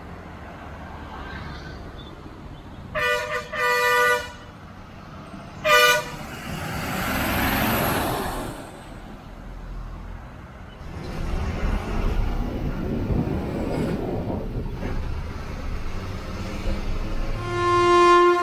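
Road traffic passing, with vehicle horns honking: two short toots about three seconds in and another near six seconds. Between them comes the rising and fading noise of vehicles driving past, and a held horn-like tone sounds near the end.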